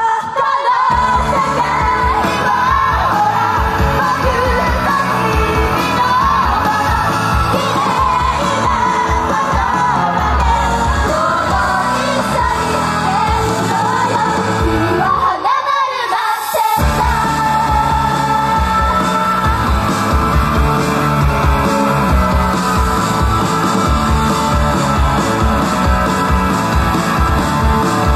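Loud live J-pop/rock idol song with group singing and shouted lines. About two-thirds of the way through, the bass drops out for about a second before the full music comes back.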